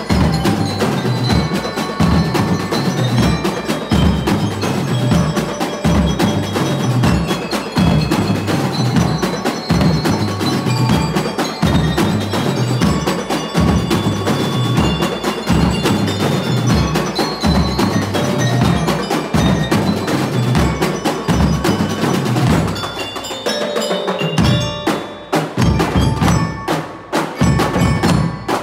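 A community marching band playing: bell-lyre or glockenspiel tones ring out a melody over a steady beat of bass and snare drums. The drumming drops away briefly near the end, then comes back in.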